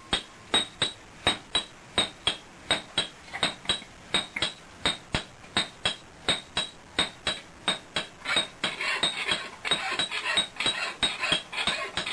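Blacksmith's hammer striking metal on an anvil in a steady rhythm of about three ringing blows a second, the blows coming faster and less evenly in the last few seconds.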